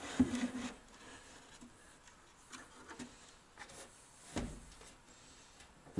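Faint rubbing and light knocks as a wooden board and a sheet-metal wireway are handled and positioned against a wall, with one louder thump about four and a half seconds in.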